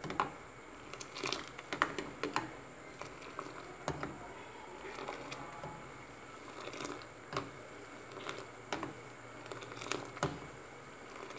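Steel ladle knocking and scraping against an aluminium saucepan at irregular intervals, with liquid splashing, as simmering milk tea is scooped up and poured back from a height to beat it.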